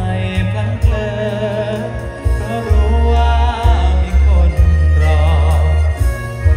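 A male singer singing into a microphone over loud amplified music with heavy bass, his voice wavering in pitch on held notes.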